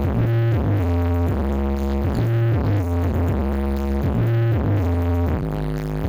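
Electronic dance music played over a huge stacked Blizzard Audio sound system, with a steady beat and deep, held bass notes repeating about once a second.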